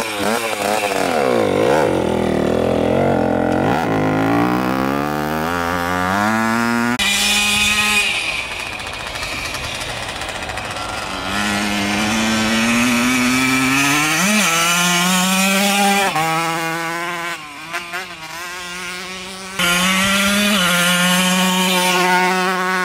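1983 Honda CR50's 50cc two-stroke single-cylinder engine revving as the bike pulls away and rides. It rises in pitch under throttle and drops back several times, and grows loud again near the end as the bike passes close by.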